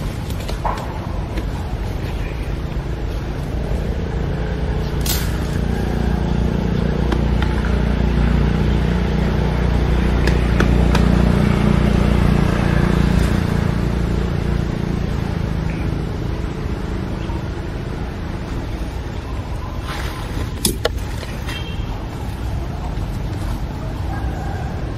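A low rumble that swells toward the middle and then fades, with a few short sharp clicks, one about five seconds in and a couple near twenty seconds.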